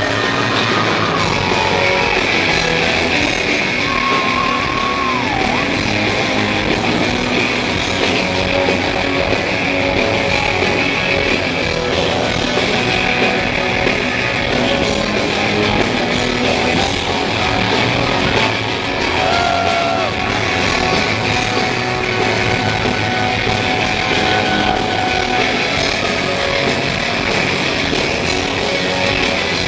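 A rock band playing live and loud: electric guitar over bass and drums, steady throughout.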